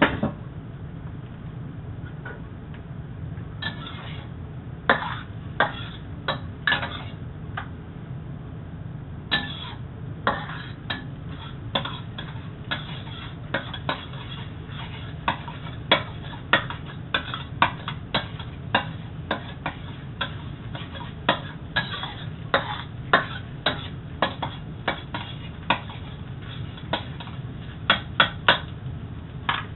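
A metal cooking utensil clinking and scraping against a wok while stir-frying egg, in irregular strokes that are sparse for the first few seconds and then come quickly, over a steady low hum.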